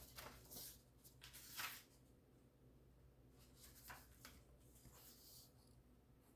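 Faint rustling of paper as the pages of a printed magazine are handled and turned, a few soft brushes in the first five seconds.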